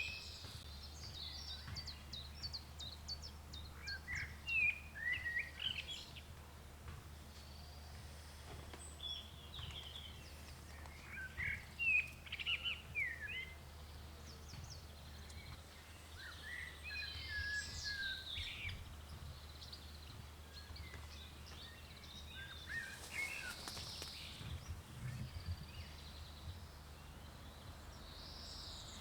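Wild birds chirping and singing in short phrases and trills, over a steady low rumble.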